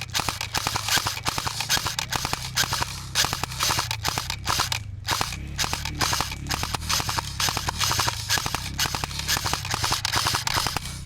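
Airsoft gunfire: rapid strings of sharp shots, several a second, in long runs broken by brief pauses.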